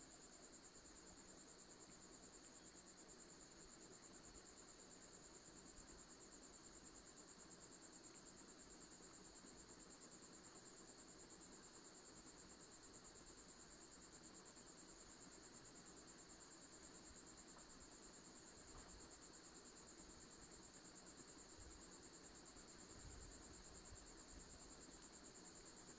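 Near silence, with a faint, steady, high-pitched trill in the background.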